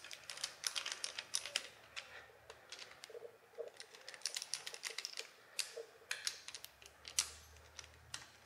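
Faint, irregular light metallic clicks and ticks as short bolts are threaded by hand into a Toyota 2JZ oil pump housing and drawn in with a small ratchet.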